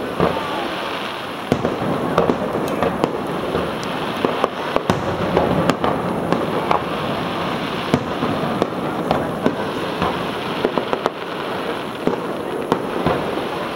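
Fireworks going off in quick succession: many sharp bangs and cracks, several a second, over a constant rumbling haze.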